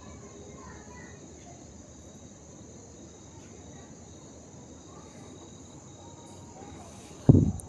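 Steady, high-pitched chirring of insects, with a short, loud thump near the end.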